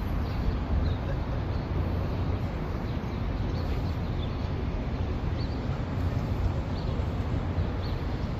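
Steady low rumble of city traffic, with faint, short bird chirps about once a second.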